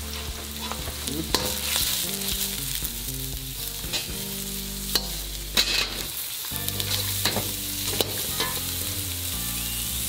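Minced garlic and dried chiles sizzling in hot oil in a wok, stirred with a metal wok ladle that scrapes and clicks against the pan several times.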